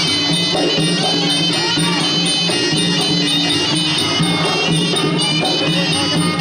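Traditional Khmer boxing ring music: a nasal reed oboe (sralai) playing a continuous, wavering, ornamented melody over a steady lower accompaniment, as played live to pace a Kun Khmer bout.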